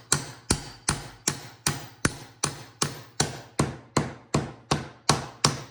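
A hammer tapping a pin back into a Ridgid toolbox lid hinge. It strikes in a steady rhythm, about two and a half blows a second, and each blow rings briefly.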